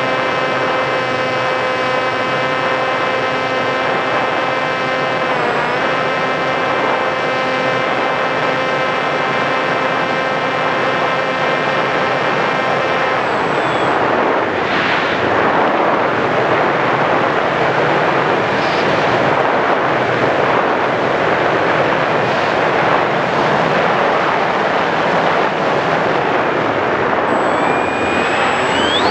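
Onboard sound of an RC Sky Surfer foam glider: its electric pusher motor and propeller whine at a steady pitch, dipping briefly about five seconds in, then cut out about halfway through, leaving a louder rush of wind as the plane glides. The motor whine rises again at the very end.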